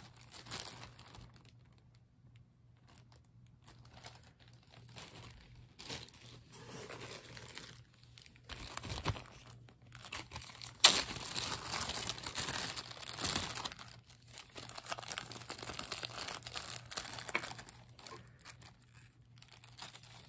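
Clear plastic zip-top bags crinkling and rustling in irregular bursts as they are handled, loudest about halfway through, where a sharp snap starts a longer stretch of crinkling.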